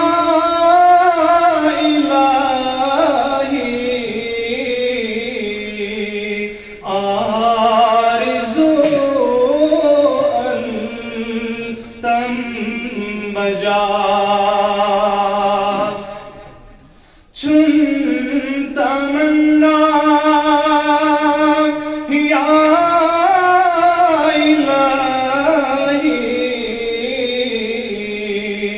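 A man singing solo in long, drawn-out melodic phrases, a devotional recitation in the manner of a naat. There is a brief pause for breath just past halfway.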